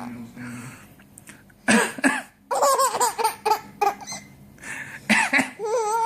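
A man coughs and a baby laughs back, twice: a cough about two seconds in is followed by a run of high-pitched baby laughter, and another cough near the end is followed by a short high laugh.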